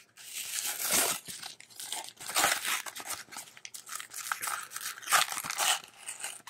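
Pokémon trading card blister pack being torn open by hand: the cardboard backing rips and the packaging crinkles in irregular bursts, loudest about a second in and again near five seconds.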